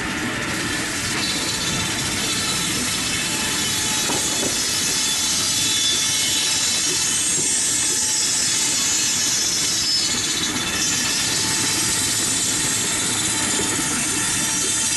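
Steam-driven sawmill running: a large circular saw blade spinning at speed while the log carriage is drawn along its rails toward it. The noise is steady, with a high whine that sweeps down in pitch a couple of times.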